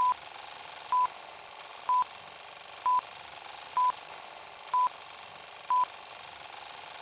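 Film-leader countdown beeps: a short, steady 1 kHz tone once a second, seven times, over a constant hiss.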